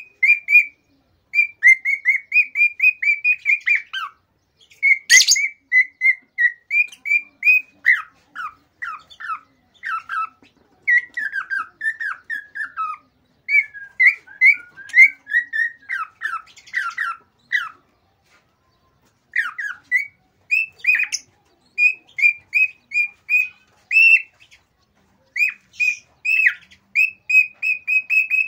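Male cockatiel in excited song: rapid runs of short whistled chirps, many falling in pitch, in phrases broken by brief pauses.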